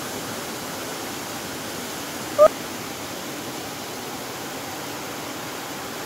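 Steady rushing of a waterfall and stream, an even hiss of falling water. About two and a half seconds in there is one brief, loud, high-pitched sound.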